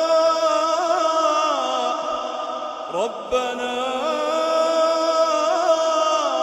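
Quranic recitation in a melodic tajweed style: a single voice holds long, ornamented notes, with a short breath about three seconds in.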